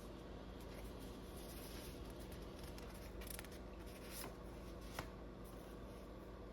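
Quiet room tone with a low steady hum, broken by a few faint light clicks and rustles past the middle.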